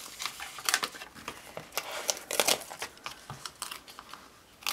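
Black cardstock being peeled off a sticky Cricut cutting mat: a series of short, irregular crackling and tearing sounds as the paper comes away from the adhesive.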